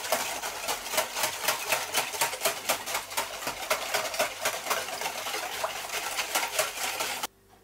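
Wire whisk beating a brine in a plastic tub, a fast run of clicks and swishes of liquid as it stirs the salt and sugar into the water to dissolve them. It cuts off suddenly near the end.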